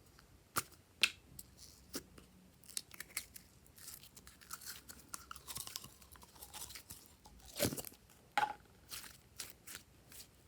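Slime being worked by hand: a run of crackly, crunchy snaps and clicks, denser in the middle, with two louder snaps near the end.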